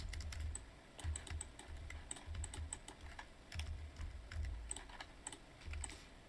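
Computer keyboard keys clicking in quick, irregular taps, a key combination (Ctrl+Z, undo) pressed over and over, with dull low thumps under the clicks.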